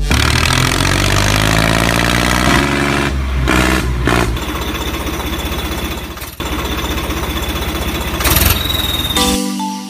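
Tractor engine sound effect running loudly, its pitch shifting in the first few seconds, then settling into a steady, fast chugging pulse. Near the end it stops and a tinkling mallet-like melody begins.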